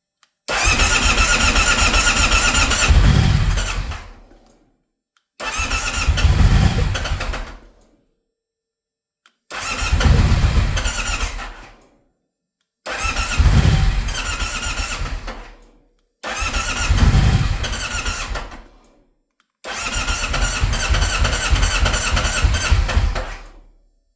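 Alfa Romeo Stelvio engine cranking on its starter six times in a row, each attempt lasting a few seconds with a steady whine. Near the end of each attempt a low surge rises, then dies away before the next try. The engine will not start.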